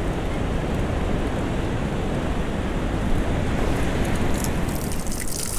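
Steady rushing of wind on the microphone over the wash of ocean surf, with a brighter hiss near the end.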